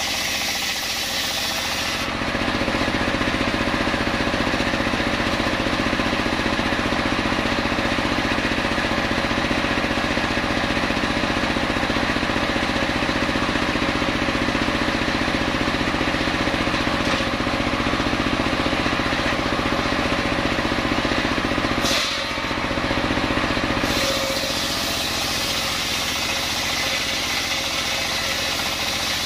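Homemade engine-driven circular saw bench running continuously, its large blade ripping coconut wood lengthwise. The sound shifts about two seconds in and dips briefly a little past twenty-two seconds as one cut ends and the next begins.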